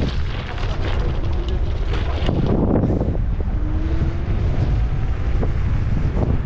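Wind buffeting the microphone of a moving electric scooter: a loud, steady low rumble with scattered knocks and rattles from the ride over the road.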